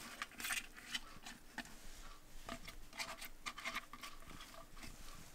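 Hand pressing whole cabbage leaves down onto tamped shredded cabbage in a stoneware fermentation crock: faint, irregular rustles and crackles of the wet leaves.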